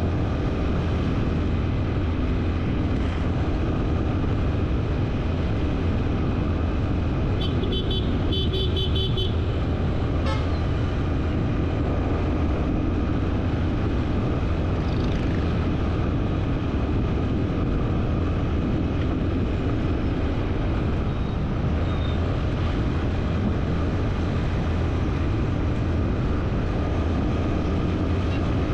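Steady road and vehicle noise, with a vehicle horn tooting in a rapid string of about eight short beeps about eight seconds in.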